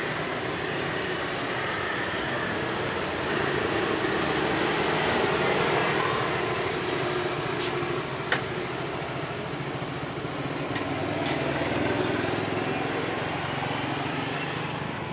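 Small motor scooter engines running close by in street traffic, a scooter pulling up and idling, the noise swelling and easing as vehicles come and go. A single sharp click about eight seconds in.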